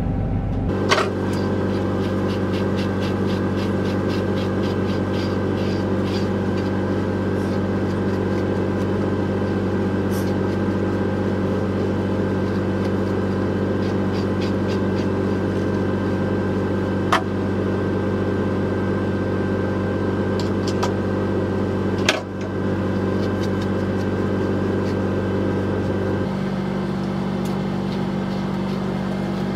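Steady hum of a running machine, a low drone with several fixed tones that changes tone a few seconds before the end, with a few sharp clicks. Faint strokes of a comb and slicker brush through a dog's coat can be heard under it.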